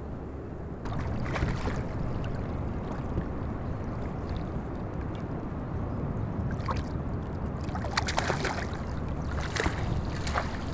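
Water splashing as a small bonefish thrashes at the surface beside a wading angler and is scooped into a landing net: a few splashes about a second in, then more in the last few seconds. Under it is a steady low rumble of wind.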